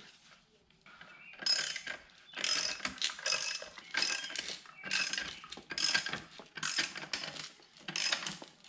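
Ratchet wrench clicking as it turns the forcing screw of a MacPherson strut spring compressor, in repeated strokes about once a second. The compressor is squeezing the front coil spring of a BMW E90 strut so the spring no longer loads the strut.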